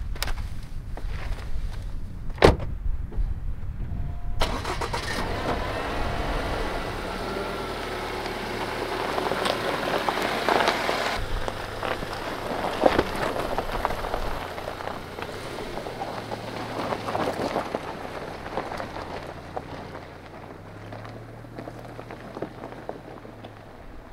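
A car door shuts with a sharp knock, then a Subaru Outback Wilderness starts and pulls away over loose gravel, its engine and crunching tyres fading as it drives off.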